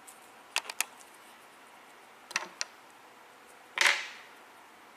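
Small clicks and taps of plastic Play-Doh playset pieces being handled and set down: two quick clicks, then two more a couple of seconds in, then a louder knock near the end.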